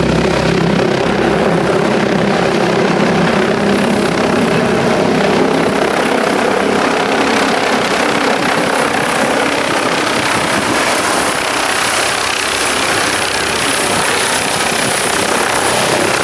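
Helicopter descending to land close by, its rotors and engine making a loud, steady roar. A thin high whine joins the roar about four seconds in.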